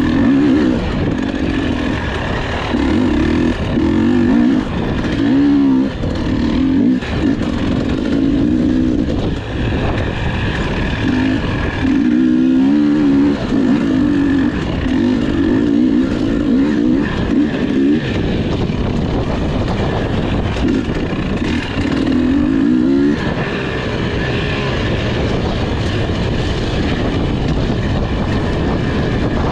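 Enduro motorcycle engine revving hard and easing off again and again, its pitch climbing and dropping as the rider accelerates and shifts. About three-quarters of the way through, the engine note falls away and a steady rushing noise remains.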